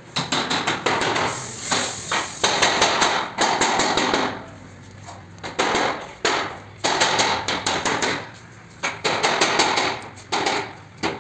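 Hammering on a building site: several bursts of quick, sharp blows, each burst a second or two long, with short pauses between.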